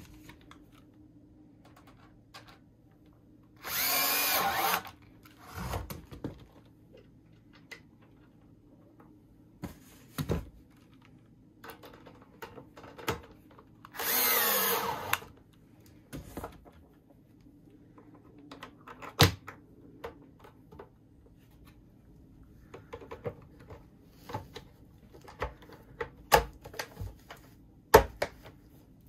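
Cordless drill-driver whirring in two short bursts about ten seconds apart, driving screws into a plastic washing-machine lid hinge. Scattered sharp clicks and knocks come between and after the bursts.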